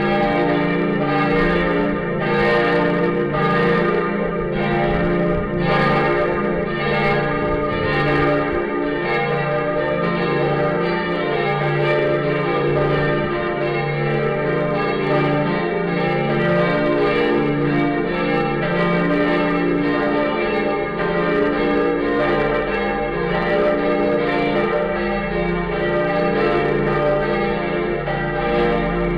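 The Lindenkirche's church bells ringing together in a full peal. Strikes overlap about one to two a second, with the bells' long ringing tones blending into a steady wash.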